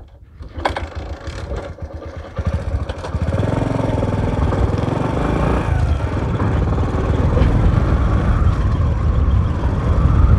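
Motorcycle engine running with an even low beat, then opening up from about three seconds in: louder and steady, with its pitch rising and falling as the throttle changes.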